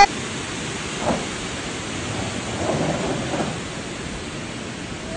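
Steady rushing noise of a rocky mountain stream cascading down a gorge, with a few soft swells.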